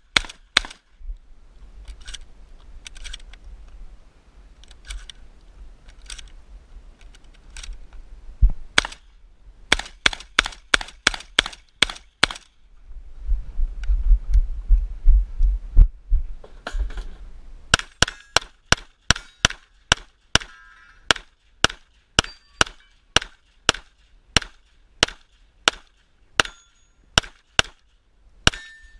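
Close gunfire from a competitor's own guns: scattered shotgun shots in the first half, one loud shot about eight seconds in and a quick cluster a little after. A stretch of low rumble follows, then a fast, even string of pistol shots about two a second through the last ten seconds.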